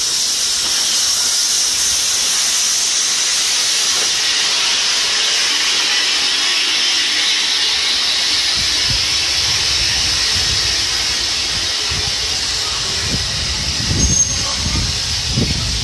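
BR Standard Class 9F 2-10-0 steam locomotive 92203 standing with steam hissing loudly and steadily. From about halfway, low rumbling thuds come and go, and a short high squeal sounds near the end.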